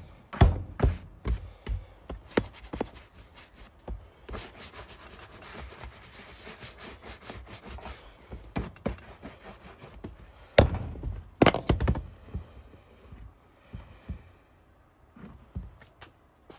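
Wooden-backed bristle brush scrubbed in quick strokes over a leather work boot, buffing the mink-oil-conditioned leather. Two loud knocks come about two-thirds of the way through.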